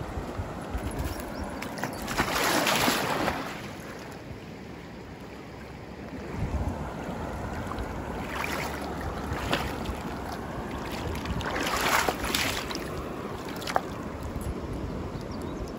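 River water running, with wind buffeting the microphone. Two louder rushes of water noise come about two seconds in and again near twelve seconds, with a few sharp clicks between them.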